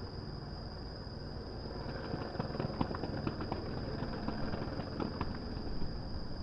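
Distant fireworks bursting and crackling: a low, continuous rumble with many small rapid crackles, thickest in the middle. A steady high-pitched tone runs under it.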